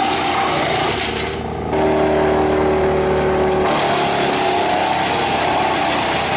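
Tow-behind wood chipper running hard while chipping conifer brush: a steady engine note under the rush of branches being shredded and chips blowing out the chute. The sound drops briefly about a second and a half in, then comes back.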